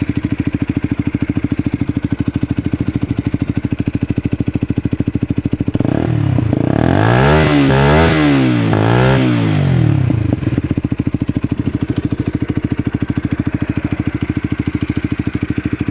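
Masai Furious motorcycle with an Akrapovic carbon exhaust idling with an even pulse. A little after five seconds in the throttle is blipped three times in quick succession, the revs rising and falling each time, before it settles back to idle.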